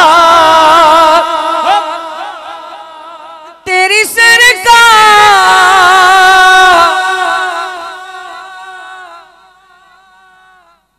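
A man's solo voice singing a naat through a microphone, holding long, ornamented notes. The first phrase trails off slowly. A second loud phrase enters about four seconds in and fades gradually, and the sound stops just before the end.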